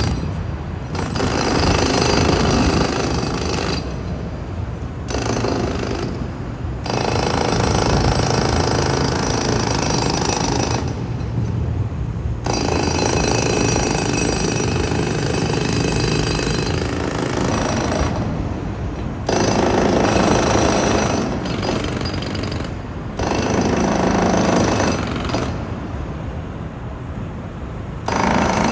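Jackhammer hammering on a construction site in runs of several seconds, stopping briefly between runs and starting again.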